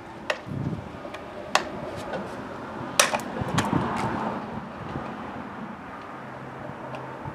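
Nylon zip ties being fastened around a foam pool noodle on a steel truck bed extender bar: several sharp clicks spread through the first four seconds, with rustling of hands on the foam.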